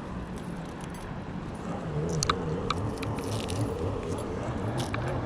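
A boat motor drones with a wavering pitch, growing louder about two seconds in, with a few sharp clicks and rattles over it.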